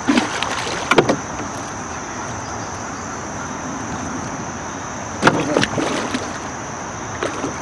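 A large blue catfish thrashing and splashing at the water's surface beside a rowboat, hooked and fighting the line. Short splashes come about a second in and again around five seconds in, over steady water and wind noise.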